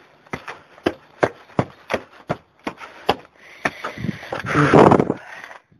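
Footsteps climbing masonry steps, sharp, even treads at about three a second. Near the end a loud rushing noise covers them.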